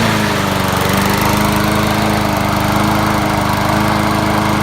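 Husqvarna all-wheel-drive lawn mower's small petrol engine running steadily at one speed, freshly started. The mower has been brought back to life after the stale winter gas was drained from the carburetor bowl and the engine was given starter fluid.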